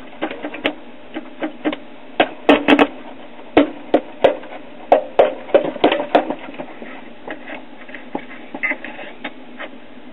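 Audiotronics 300A tube record player's speaker giving irregular pops and crackles over a steady hiss while no record is playing. The noise is amplifier static, which the owner suspects comes from a bad socket for its 6T9 compactron tube.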